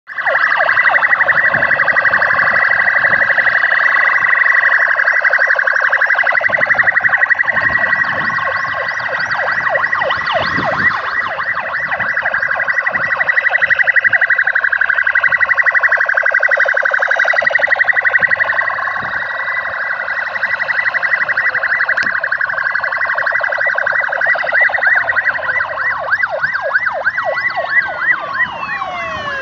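Sirens of a column of police vehicles sounding together as they drive past, many overlapping sirens with rapid yelping warbles and rising and falling wails.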